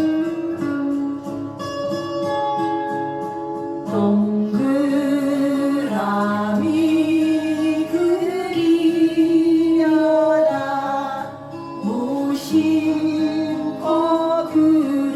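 A song with a singer and guitar accompaniment, the voice holding long notes with vibrato.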